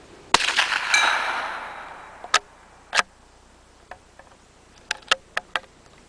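A single shot from a CZ 452 American .22 LR bolt-action rifle, its report rolling away in an echo for over a second. Sharp metallic clicks follow as the bolt is worked: two loud ones about a second apart, then a quick run of four near the end.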